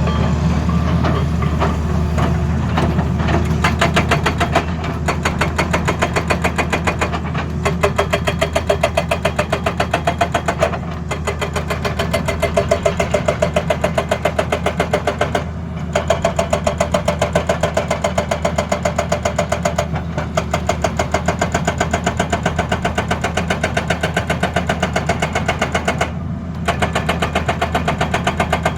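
Hydraulic breaker (rock hammer) on an excavator hammering with rapid, even blows over the steady drone of the excavator's diesel engine, pausing briefly three times before resuming.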